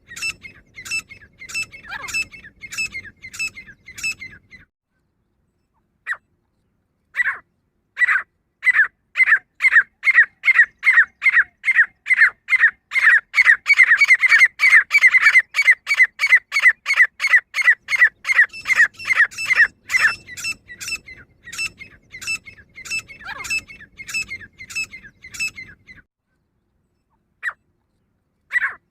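Female grey francolin calling: fast trains of short, sharp high notes, about three a second. The call breaks off for a few seconds, with a couple of single notes, then a long train that quickens and grows louder in the middle before easing off.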